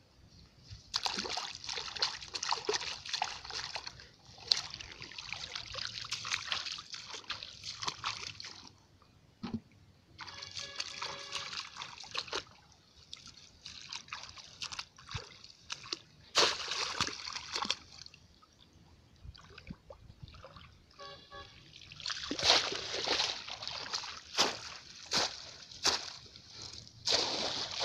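Shallow muddy water sloshing and splashing in irregular bursts as hands grope through the mud and feet wade in the flooded field.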